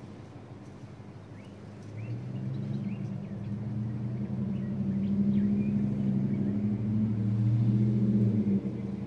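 A low steady motor hum that grows louder about two seconds in and drops off near the end, with a few faint high chirps over it.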